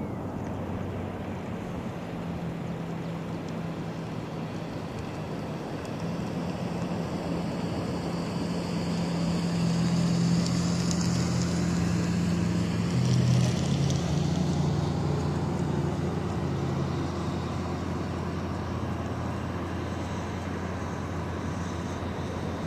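Drone of a distant passing engine that swells about halfway through and then eases off, over a steady rushing background.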